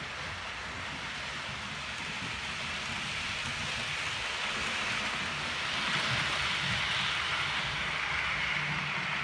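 Model passenger train running along the layout's track, a steady hissing rattle of wheels on rail joints with a low motor hum, growing louder as it passes close by about halfway through.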